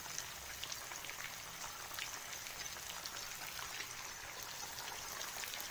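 Bran-coated liver slices frying in hot oil on a high flame: a steady sizzle with many fine crackles.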